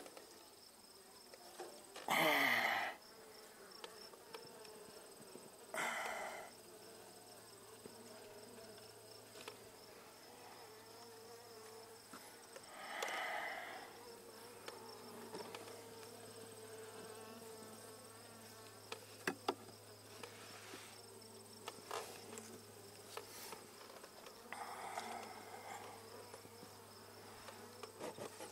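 Honeybees buzzing around an open hive, swelling louder a few times. A few light wooden knocks come as frames are set back into the box.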